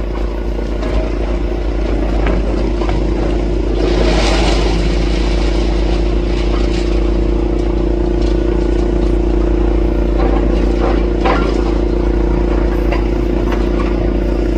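Demolition excavator running steadily while its hydraulic cruncher breaks up the building, with intermittent crunching and clattering of concrete and debris, the biggest crash about four seconds in.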